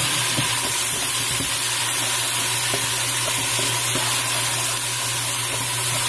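Chopped onion frying in hot oil in a pressure cooker: a steady sizzle as crushed garlic-ginger goes in, with a few knocks of a wooden spatula stirring.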